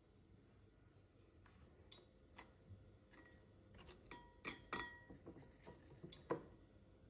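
Quiet scattered clicks and light clinks of apple slices being handled in a glass bowl and dipped into a bowl of batter. They come thickest about four to five seconds in, with a couple of short glassy rings, and the loudest click comes a little after six seconds.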